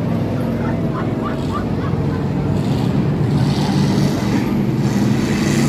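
Race-car engines running under way as a steady drone, getting a little louder toward the end, with rushing hiss added from about three seconds in.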